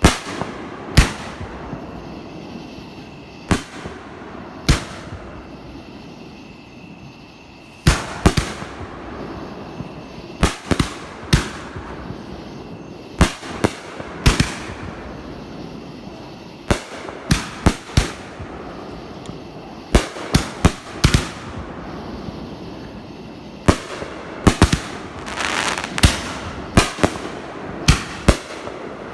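Fireworks going off: a long, irregular series of loud, sharp bangs, a few seconds apart at first and then coming thick and fast, with a denser crackling stretch near the end.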